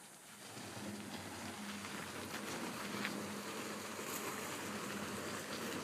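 A heavy tire dragged by a rope across a grass yard: a steady scraping rustle that starts about half a second in, over a faint low hum.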